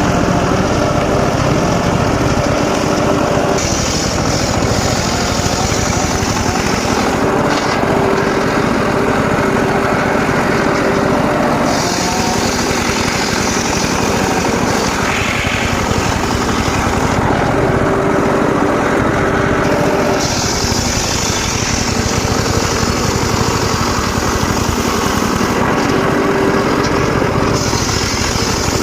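Engine-driven circular sawmill running steadily while its blade saws mahogany. A higher hiss from the cut comes and goes in several stretches of a few seconds each.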